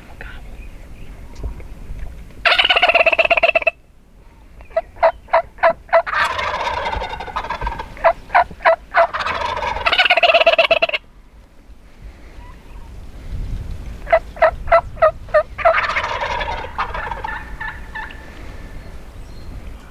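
Wild turkey gobblers gobbling loud and close, about four gobbles of roughly a second each. Between the gobbles come runs of five or six quick, evenly spaced yelps.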